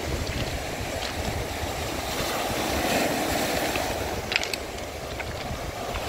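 Surf breaking and washing over a pebble beach, the wash swelling and easing about halfway through, with a few sharp clicks a little after that, under wind rumbling on the microphone.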